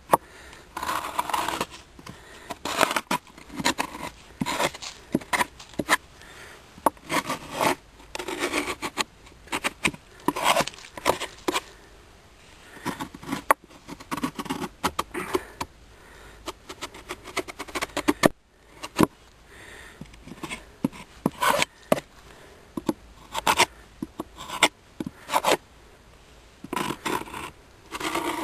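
Repeated irregular scraping and rubbing strokes on the wooden parts of a top bar hive, with sharp clicks between them, as a hive tool works on the hive during a winter inspection.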